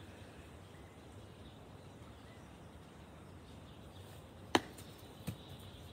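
Quiet outdoor garden ambience with a low steady background noise, then a sharp knock about four and a half seconds in and a softer one just under a second later.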